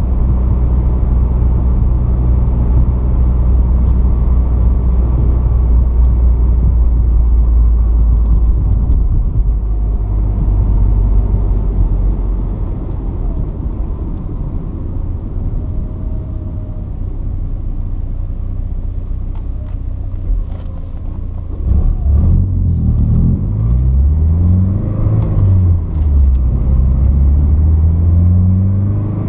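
Porsche 944's 2.5-litre four-cylinder engine on the move: a steady cruising note at first, then eased off and quieter through the middle. From about two-thirds of the way through, the engine pitch climbs and drops back several times, as with accelerating through gear changes of the manual gearbox.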